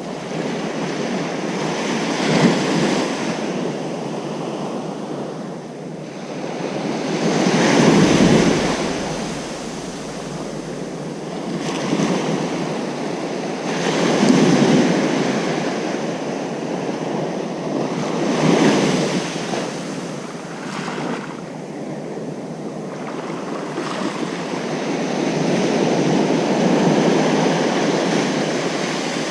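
Ocean surf breaking on a beach: a steady wash of water that swells and falls back every few seconds as each wave comes in, with the biggest breaks about eight and fourteen seconds in.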